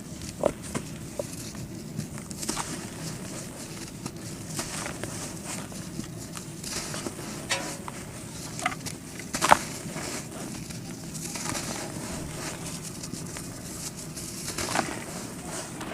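Clumps of red dirt crumbling and crunching, with scattered crisp crackles and small snaps over a soft gritty rustle; the loudest crunch comes about halfway through.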